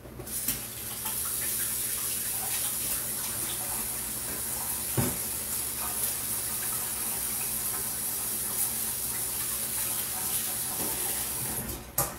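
Kitchen faucet running steadily into the sink while hands are washed under it. It starts about half a second in and is shut off just before the end, with a few knocks and splashes along the way.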